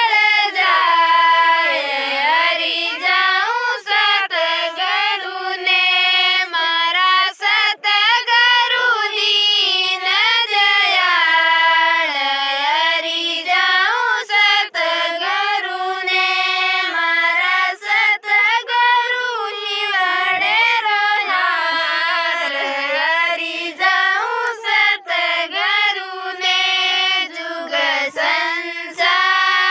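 A woman singing a Rajasthani devotional bhajan in a high voice with no instruments, drawing out long, wavering notes in a flowing melody.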